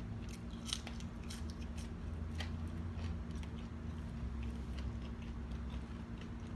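Close-miked chewing of homemade french fries: soft mouth clicks and small crunches scattered throughout, over a steady low hum.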